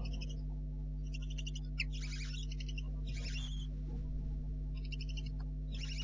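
Barn owl owlets giving their hissing, rasping begging calls, short bursts of about half a second repeated roughly once a second, over a steady low hum.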